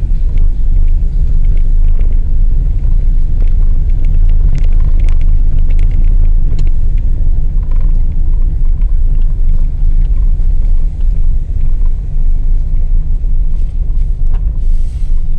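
Steady low rumble inside a slowly moving car: tyres on a cobbled road and the engine, heavy on the microphone, with scattered light rattles and clicks. A brief hiss sounds near the end.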